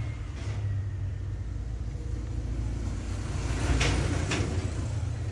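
Steady low rumble of background noise, with a short rustle of handling noise about four seconds in as the phone is picked up off the rubber work mat.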